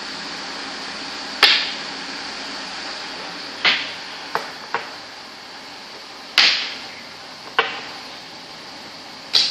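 Sharp clacks from a makruk (Thai chess) game in play, pieces and clock being struck, seven in all at uneven intervals, each with a short ringing tail, over a steady hiss.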